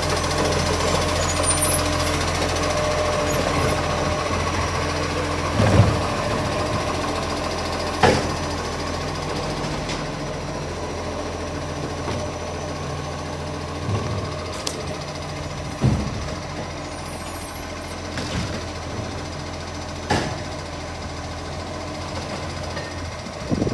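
Garbage truck engine running steadily, with several sharp clunks and knocks every few seconds.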